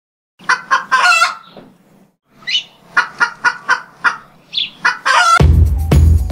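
Chicken clucking sound effect: a run of short clucks with a couple of higher, rising squawks. About five seconds in, loud music with a heavy drum beat starts.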